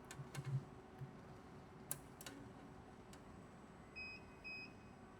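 Faint, scattered mechanical clicks from an automatic connector screwing machine at work, then two short, high electronic beeps near the end.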